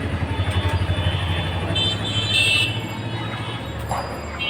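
Street traffic: a vehicle engine running close by with a low, rapid pulsing that fades after about three and a half seconds, and a brief high-pitched tone about two seconds in.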